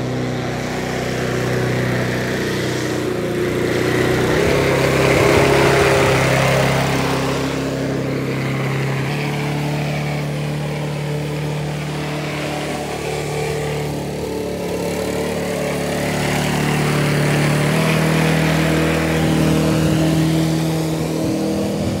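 Honda walk-behind gasoline lawn mower running steadily while cutting grass, its engine pitch shifting slightly a few times.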